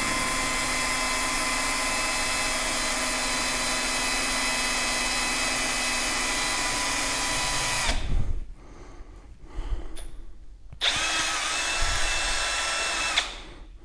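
Cordless drill boring a wire hole through a PVC end cap. The motor whines at a steady speed for about eight seconds and stops. After a short pause with a few light knocks it spins up again for about two seconds and stops near the end.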